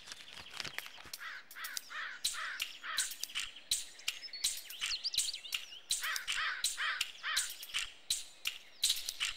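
Crow cawing in quick repeated calls, one run early on and another a few seconds later, over scattered sharp clicks.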